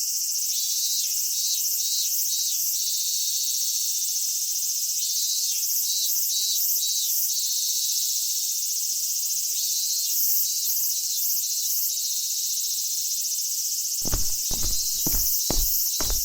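Summer insect chorus: a steady high chirring with short pulsed chirps repeating every second or so. Near the end a quick run of thumps like footsteps begins.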